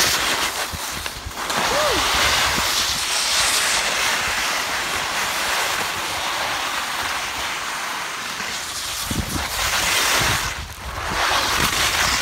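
Steady hiss of snow sliding under a rider coming down a ski slope, with wind buffeting the microphone. It eases off briefly about a second in and again near the end.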